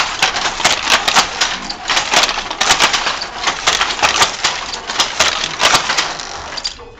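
Wooden handloom being worked: a quick, uneven run of sharp wooden clacks.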